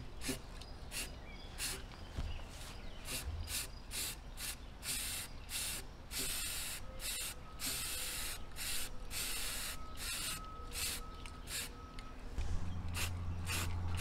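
Aerosol spray can of primer hissing in many short bursts, with a few longer sprays in the middle, as paint is sprayed onto a steel frame. A low steady hum starts near the end.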